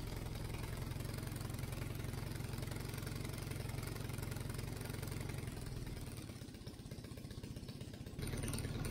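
The Minimax 1100r ultralight's Hummel engine idling steadily on the ground just after starting. About six seconds in its sound dips and wavers for a couple of seconds, then comes back up near the end.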